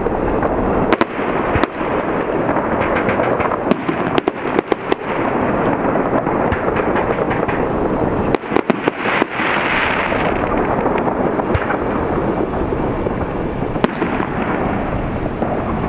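Aerial fireworks display: a continuous din of shell bursts and crackle, broken by clusters of sharp bangs about four to five seconds in and again around eight to nine seconds, with a hissing swell about ten seconds in.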